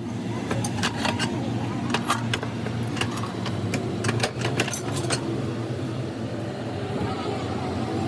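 Factory machinery running with a steady low hum, with frequent sharp metal clicks and clanks in the first five seconds and fewer after, from work on exhaust-fan parts.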